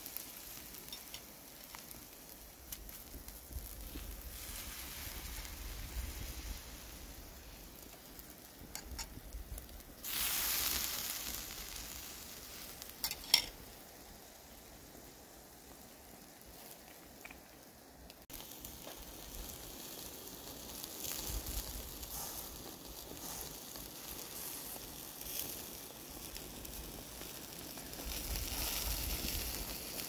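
Salmon fillet sizzling in a wire grill basket over oak-wood embers, a steady hiss with scattered crackles and one sharp pop near the middle.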